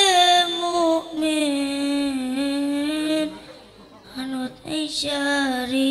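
A young boy singing a selawat (Islamic devotional song) solo into a microphone, in long drawn-out notes that waver and slide, with a short break for breath about halfway through.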